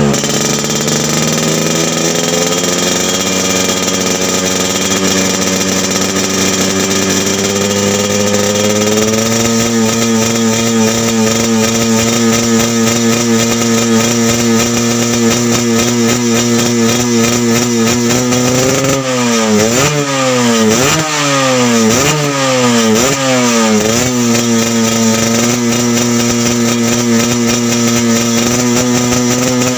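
Yamaha RX-King's two-stroke single-cylinder engine running through a Medan-style aftermarket exhaust. Its revs climb slowly and then hold steady. In the last ten seconds or so it is blipped repeatedly, each rev rising sharply and dropping back, about once a second.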